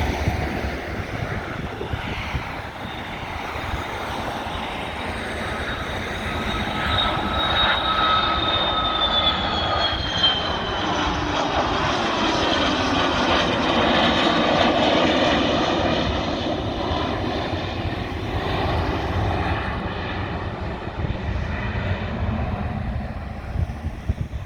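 The Rolls-Royce Spey turbofans of a Gulfstream III business jet at takeoff power as it passes. A high whine falls in pitch a few seconds in, and the engine noise swells to its loudest about halfway through before easing off.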